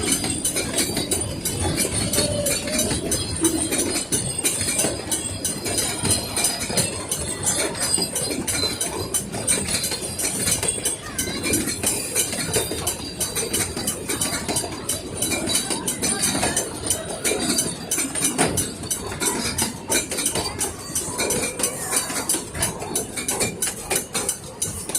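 Puffing Billy narrow-gauge steam train passing close by: a steady, rapid clatter and clanking of wheels and running gear on the rails, with a hiss above it.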